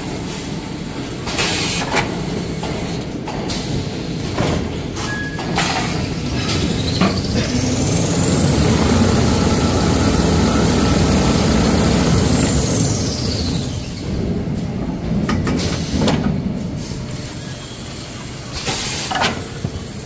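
Kitchen-towel rewinding line running: a high machine whine rises over about two seconds, holds for a few seconds and falls away, over a steady rumble, with several sharp clanks and knocks of the machinery before and after.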